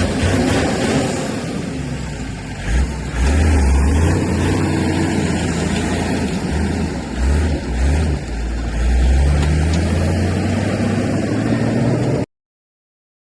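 Heavy diesel engine of earthmoving machinery running under load, a low rumble that swells and eases every second or two, then cut off abruptly to total silence about twelve seconds in.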